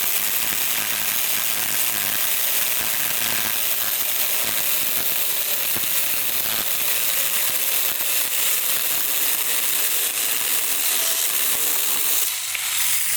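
Saker 6-inch cordless battery mini chainsaw running steadily as its chain cuts through a small log, stopping near the end as the cut finishes.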